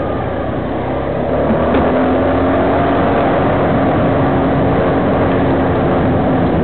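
Engine of the vehicle carrying the camera, running steadily under road and wind noise, its note rising slightly about two seconds in.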